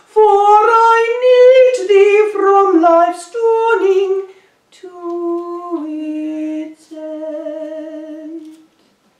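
A woman singing a hymn alone and unaccompanied, holding long notes with vibrato. The last phrases are softer, and the singing ends shortly before the end.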